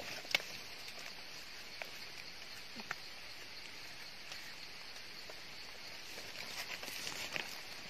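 A mushroom being pulled from the forest floor and its stem base scraped with a large knife: a few soft clicks and rustles, the sharpest just after the start, over a steady high hiss.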